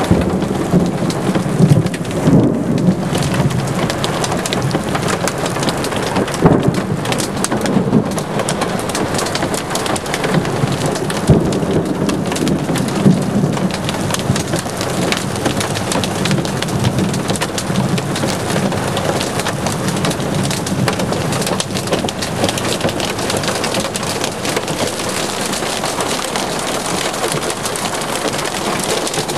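Heavy rain mixed with small hail pelting down in a severe thunderstorm: a dense, steady downpour full of sharp ticks from hailstones striking, with a few louder surges in the first half.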